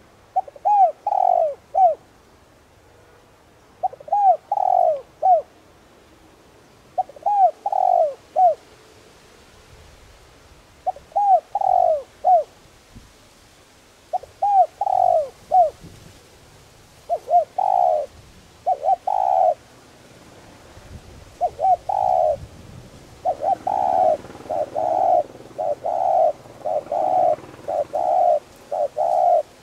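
Spotted dove cooing: short phrases of three or so low, falling coos, repeated every three to four seconds. From about three-quarters of the way through, the coos come faster and almost without a break.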